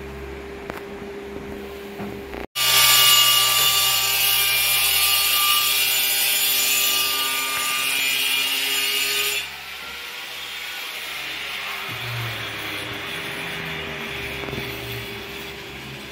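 A power tool working wood, running loud and harsh with a whining tone for about seven seconds after a sudden start, then stopping abruptly and leaving a softer steady noise.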